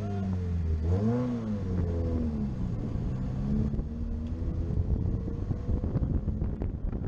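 Car engine heard from a camera mounted on the outside of the car: the engine note rises sharply about a second in, then falls away and fades over the next few seconds, with wind buffeting the microphone toward the end.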